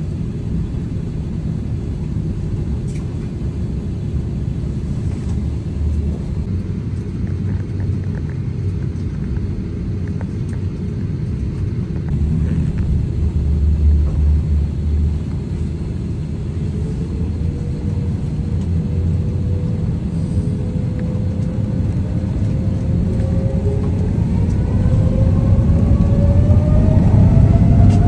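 Cabin sound of an Airbus A330-900neo taxiing: a steady low rumble from its Rolls-Royce Trent 7000 engines and rolling wheels, then over the last ten seconds or so a rising whine that grows louder as the engines spool up.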